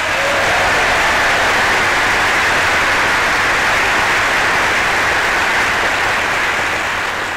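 Large audience of members of Congress applauding, a loud, steady roar of clapping that begins to die away near the end, heard through an old newsreel recording.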